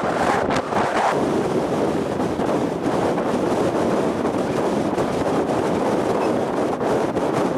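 Wind buffeting the microphone: a loud, steady rushing noise with no engine or motor note.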